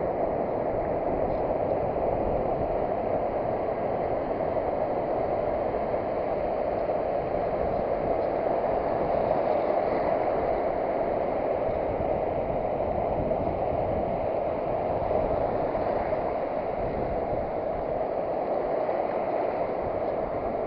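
Steady rushing noise of surf breaking along a sandy beach, even in level throughout.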